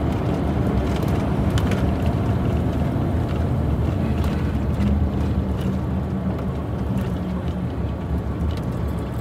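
Steady low drone of a heavy diesel truck's engine and road noise, heard inside the cab while driving at cruising speed.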